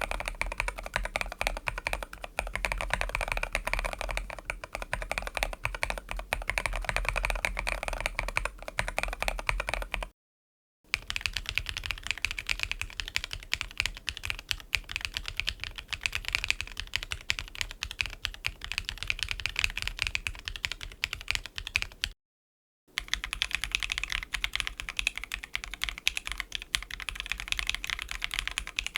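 Keyboards fitted with Keygeek Little Elf linear mechanical switches being typed on in quick, continuous keystrokes. There are three separate typing takes, each on a different keyboard, cut apart by brief silences about ten and twenty-two seconds in, and the clack changes in tone from one to the next.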